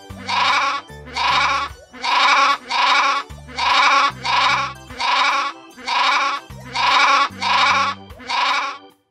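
Lambs bleating: about eleven short bleats in an even, steady rhythm, over background music with low bass notes.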